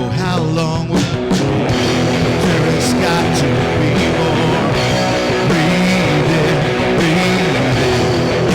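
A rock band playing live in the studio, with guitar to the fore and a steady beat.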